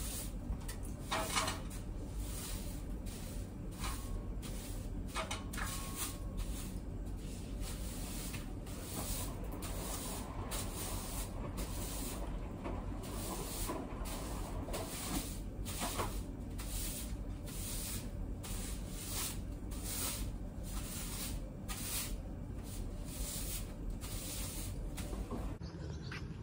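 A string mop being pushed back and forth across a hard floor, making short swishing, knocking strokes about once a second.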